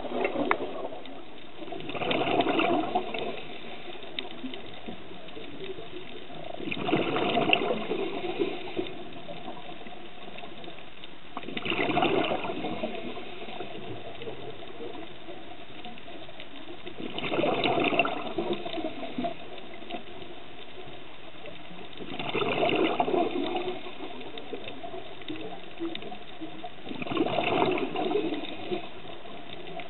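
Scuba diver's regulator exhaling underwater: a rush of bubbles about every five seconds, six breaths in all, each lasting a second or two, with a steady low hiss between.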